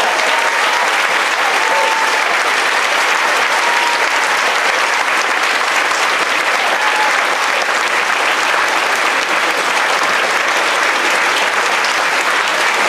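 Large audience applauding steadily, with a few short calls heard above the clapping.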